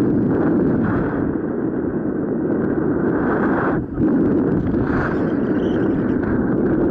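Wind rushing over the microphone of a paraglider's onboard camera in flight: a loud, steady rumble that drops out for a moment about four seconds in.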